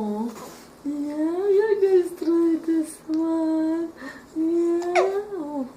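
A woman's voice singing a slow, wordless tune in long held notes that rise and fall gently. A short, sharp sound with a quickly falling pitch cuts in about five seconds in.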